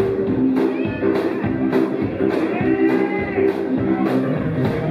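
Live rock-and-roll band playing: electric guitar over drums keeping a steady beat.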